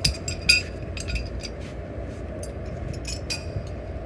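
Metal parts or tools clinking against each other: a quick run of sharp clinks with a short ring, loudest about half a second in, and a few more about three seconds in, over a steady low rumble.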